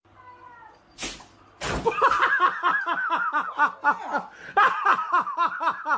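A sharp thump, then someone laughing hard in quick repeated bursts, about four a second.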